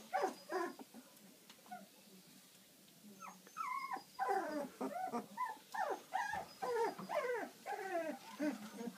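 Very young yellow Labrador puppies whimpering in short, wavering high-pitched cries: a few at the start, a brief lull, then a steady run of them from about three and a half seconds in.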